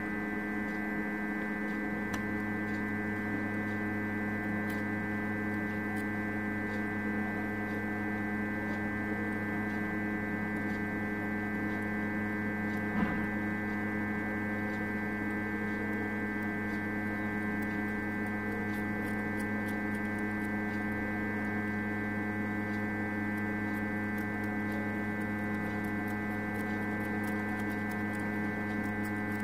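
Hot air rework station running steadily while it blows heat onto the phone board's chip to melt the glue paste, heard as a low electrical hum with several even tones above it. One faint click a little before halfway.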